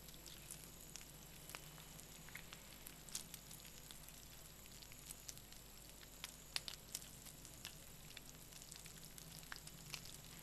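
Very faint sizzling and crackling of food frying in a pan, with scattered small ticks.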